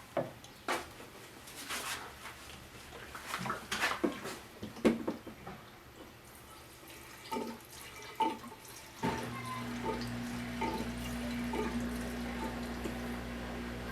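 Gasoline poured into a lawn mower's fuel tank: a few handling knocks and clicks, then from about nine seconds in a steady pour that stops suddenly near the end.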